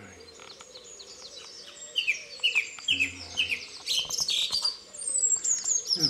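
Dawn chorus of songbirds. About two seconds in, a close bird starts a loud song of quick falling notes, repeated several times a second, over higher thin whistles from other birds. The uploader takes the lead singer for a nightingale.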